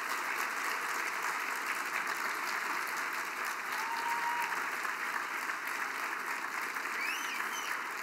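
Audience applauding steadily after an introduction, with a couple of short calls rising above the clapping near the end.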